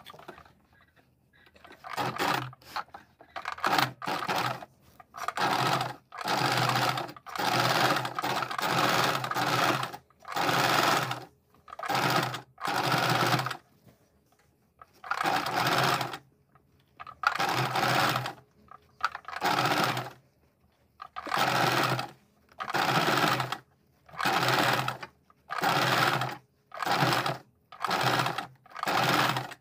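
White domestic electric sewing machine stitching lace trim onto a blouse neckline in short runs of about a second each, stopping and starting many times. It starts about two seconds in.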